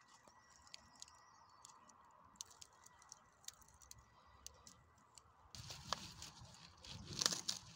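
Faint scattered light clicks and ticks over a low hiss, then louder rustling and handling noise with clustered clicks from about five and a half seconds in.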